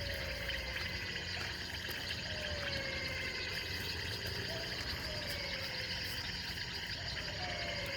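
An unidentified animal giving short, falling calls over and over, roughly one every two seconds, over a steady chorus of insects.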